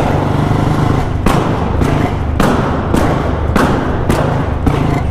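Royal Enfield Bullet single-cylinder motorcycle running at part throttle while the ignition is switched off and on, firing a string of loud exhaust backfire pops, about two a second over its steady thumping engine. The pops are unburnt fuel igniting in the exhaust each time the ignition is cut back in.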